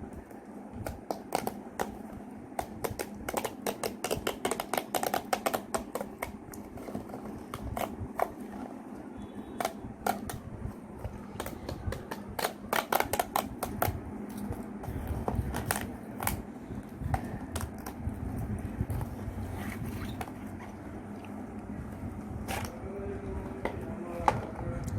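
Jolo chip packaging being handled and opened by hand: a long run of crackles and crinkles, dense through the first two-thirds, then sparser clicks.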